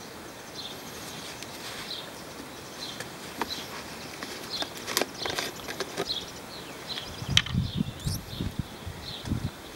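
Birds chirping in the background, short repeated chirps throughout, with a few sharp clicks and a cluster of dull handling knocks and rustles from about seven seconds in.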